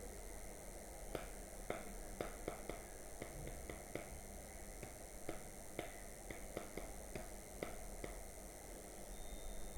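A run of about twenty light, sharp clicks at an uneven pace, from about a second in until about eight seconds in, typical of someone working a computer at a desk, over a faint steady hum and hiss.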